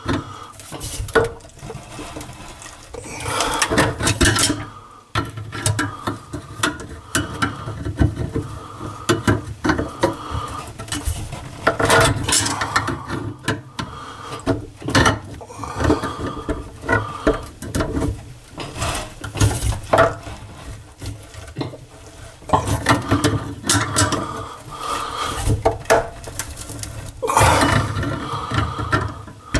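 A wrench and the metal drain parts under a bathroom sink clinking, knocking and scraping irregularly as the nut holding the pop-up drain assembly is worked at.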